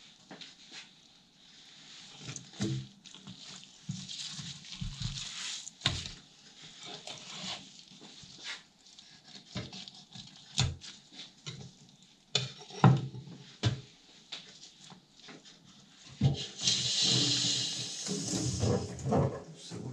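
Scattered knocks, clicks and scrapes as a large fish and a knife are handled on a wooden cutting board. Near the end, a tap runs into a steel sink for about three seconds.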